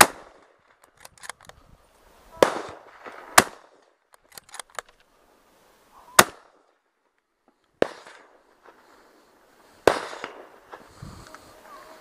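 Hunting rifle shots: about six sharp cracks spread over twelve seconds, the loudest at the very start, several trailing off in a short rolling echo, with fainter distant pops between them.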